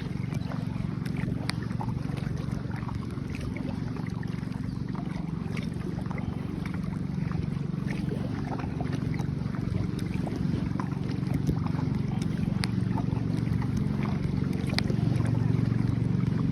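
Boat out on the water: a steady low hum that slowly grows louder, with scattered small splashes and knocks.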